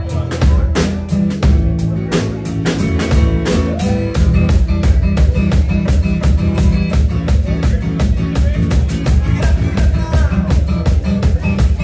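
Live band playing with drum kit, electric bass and acoustic guitar, the drums keeping a steady beat over the bass line.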